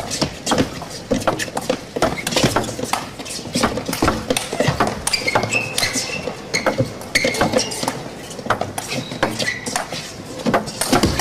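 Fast table tennis doubles rally: the ball clicking sharply and rapidly off the rackets and the table, several knocks a second, with a few short high squeaks near the middle.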